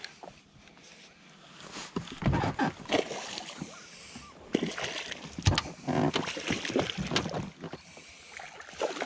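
Rowing an inflatable raft: oars splashing in the water, with irregular knocks and low thuds of the oars and gear against the boat.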